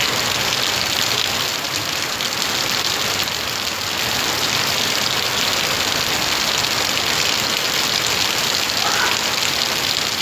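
Heavy rain pouring down steadily, a dense even hiss. A brief faint rising tone sounds about nine seconds in.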